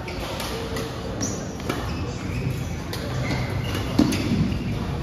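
Sneakers squeaking in short chirps with scattered thumps and knocks on an echoing indoor court, as during active play.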